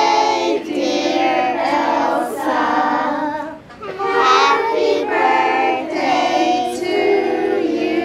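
Children singing, with notes held for about a second each and a short break about halfway through.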